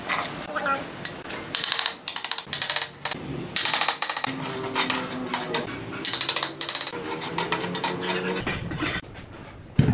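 Steel bricklaying trowel scraping mortar off brick joints and tapping bricks into the mortar bed, a quick run of scrapes and knocks with a metallic ring. From about four seconds in a steady pitched tune plays underneath.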